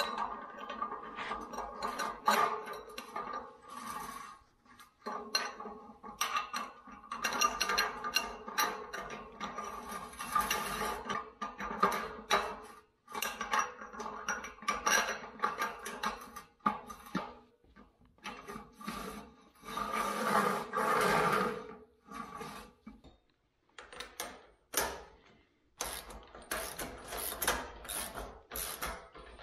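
Steel square tubing and channel being handled and fitted together by hand: repeated metal clanks, knocks and scrapes, with short ringing after some of the knocks.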